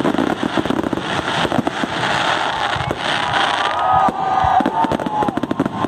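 Aerial fireworks display: a dense, continuous barrage of shell bursts popping and crackling, with a few short gliding whistles about four seconds in.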